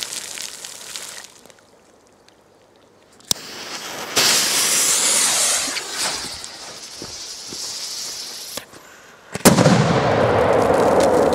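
A firecracker's fuse hisses and sputters for several seconds. Then the firecracker goes off with one sharp bang in shallow water, followed by the noise of water and mud falling back.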